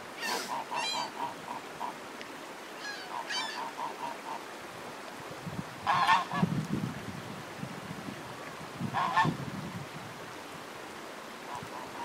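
White domestic goose honking several times as it walks, with the loudest calls about six and nine seconds in and softer quick pulsing notes between them. The uploader takes the calling for a goose searching for a lost companion.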